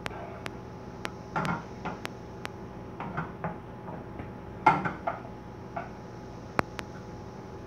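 Bacon frying in a pan over medium heat: a steady sizzle with scattered sharp pops of spattering fat. A few knocks of kitchenware being handled on the counter, the loudest a little under five seconds in.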